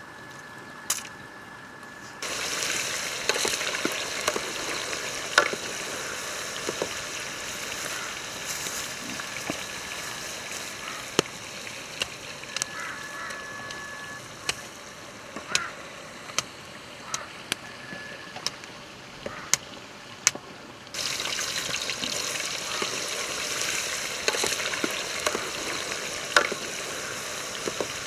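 Chicken frying in oil in a pot over a wood fire, with the fire crackling: a steady sizzling hiss dotted with sharp pops and crackles. It starts about two seconds in and grows louder about twenty seconds in. Before it there are a few sharp snaps of dry branches being broken.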